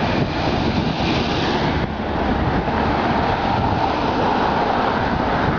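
Road traffic passing close by on the bridge roadway: a steady noise of car engines and tyres.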